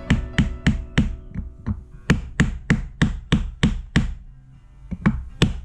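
Background music with a steady knocking beat of about three strikes a second. It pauses briefly a little past four seconds in, then resumes.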